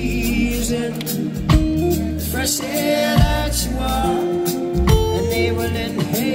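Live band music: a deep bass line changing note every second or so, regular percussion hits, and a singing voice.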